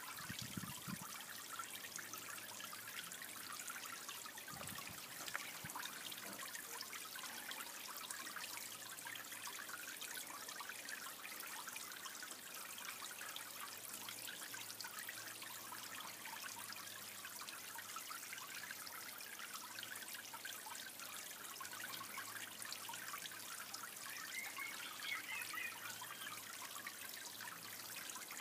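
Steady trickle of running water into a small garden pond, a fine, even splashing patter.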